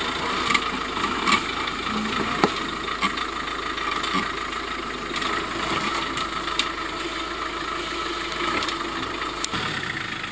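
Suzuki Jimny's engine running at low revs as the 4x4 crawls over rocks, with a few sharp knocks from the wheels and stones.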